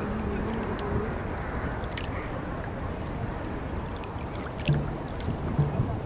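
Steady outdoor background noise, a low even rush of air and water, with scattered faint ticks and a couple of brief low hums near the end.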